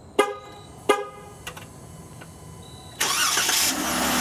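A 2015 Jeep Wrangler Unlimited Rubicon, remote-started from the key fob: two short horn chirps about 0.7 s apart, then about three seconds in its 3.6-litre Pentastar V6 cranks, catches and settles into a steady run.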